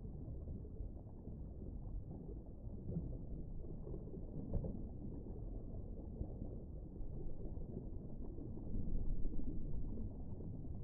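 Low, muffled underwater rumble: a deep-sea ambience with no high end, swelling slightly near the end, and a faint click about four and a half seconds in.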